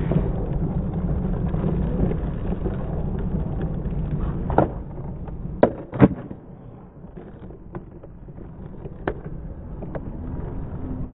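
Skateboard wheels rolling on asphalt with a steady low rumble, then a few sharp wooden clacks of the board about four and a half to six seconds in, the loudest near six seconds, as a flip trick is popped and landed. After that the rolling is much quieter.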